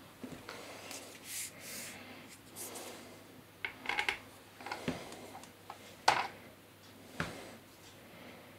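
Plastic propellers of a DJI Phantom 3 Standard being gripped and twisted on their motor hubs by hand: rubbing and scraping with scattered sharp clicks, a cluster about four seconds in and the loudest single click about six seconds in.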